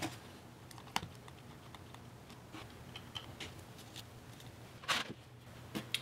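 Quiet clicks and taps of hands handling parts of an open 15-inch MacBook Pro Retina: two sharper clicks, about a second in and just before the end, among faint scattered ticks.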